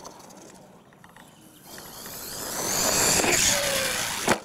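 R/C monster truck's motor and drivetrain whining as it speeds up over dirt, the whine rising in pitch and growing louder. A sharp knock comes just before the end.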